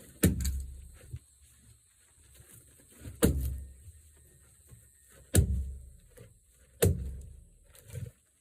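Heavy, sharp wooden thunks of oak firewood, four of them two to three seconds apart, each followed by a short low thud, with a softer knock near the end.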